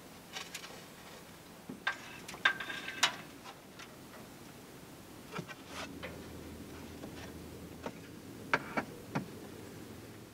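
Scattered light knocks, taps and clicks of hand work on cedar shingle siding on a scaffold plank: shingles and tools being handled and set against the wall. A faint low hum joins about halfway through.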